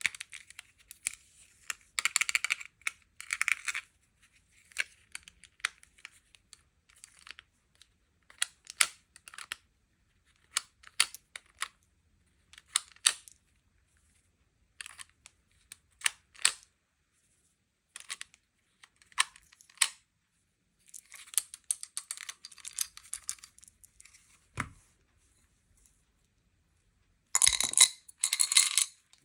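Sweets and toy packaging being opened by hand: scattered crinkles, tears and small clicks of plastic wrapping, with a soft thump late on and two louder rustling bursts near the end.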